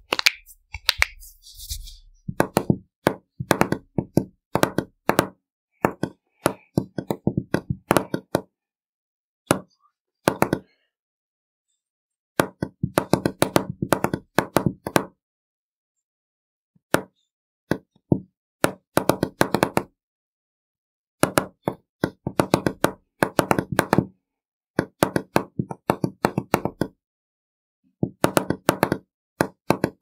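Fingertips typing on a keyboard layout drawn on a wood-grain desktop: rapid runs of dull knocks of fingers on the bare desk, in bursts with short pauses between them.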